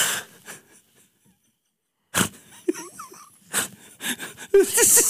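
A man's helpless, wheezing laughter: a breathy burst, a short silent pause while he holds it in, then gasping bursts building into a fast run of short wheezy laughs near the end.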